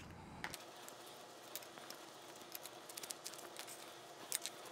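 Faint rustling and scattered light clicks of small plastic body panels being wiped with a microfiber towel and handled.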